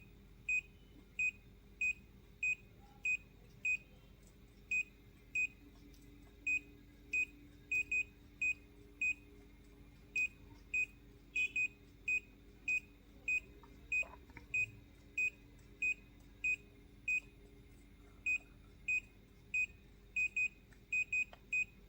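Daikin inverter air conditioner's buzzer giving short high beeps, roughly one every half second to second and a few in quick pairs, as the remote's cancel button is pressed to step through error codes in the error-check mode.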